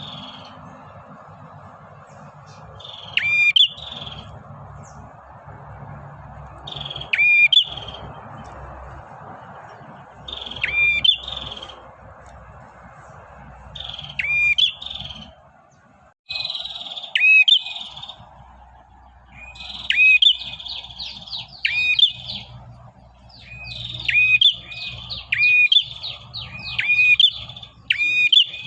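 Male red-headed prenjak in its rapid 'ngacor' calling to draw in a female: short bursts of sharp, high chirps about every three to four seconds, coming faster and almost without a break in the second half, over a steady hiss.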